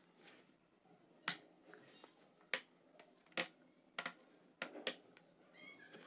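The plastic switch of a rechargeable LED emergency lantern being clicked about six times at uneven intervals, each a sharp click, cycling the lamp between off, the front LED panel and the top LED cluster.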